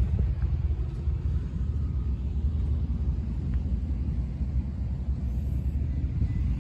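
Wind buffeting the phone's microphone: a steady, fluttering low rumble.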